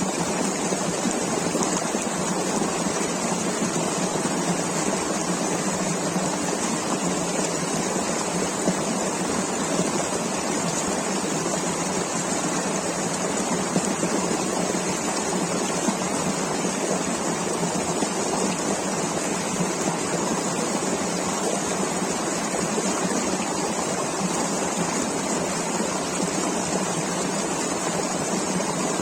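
Mountain river rushing steadily over rocks, an even hiss of flowing water.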